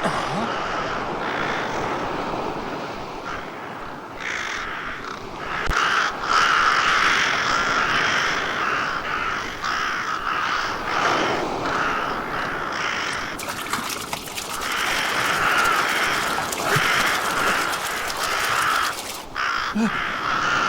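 A flock of birds cawing over and over, harsh crow-like calls overlapping in a dense din.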